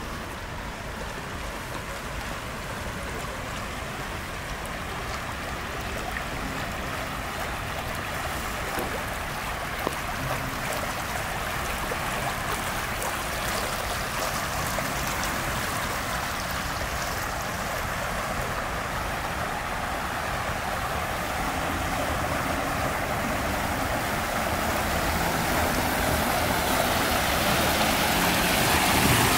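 Water running and splashing down a shallow stepped concrete channel, a steady rush that grows louder toward the end.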